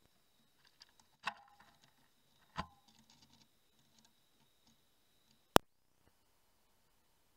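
Quiet night recording from a trail camera, with two short knocks about a second apart and a few faint ticks after them. A sharp click near the end is where one clip cuts to the next.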